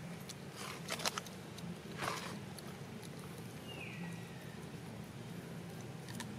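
Two short crunching noises, about one and two seconds in, from a long-tailed macaque eating an ear of corn. A little later comes a brief high squeak that falls in pitch.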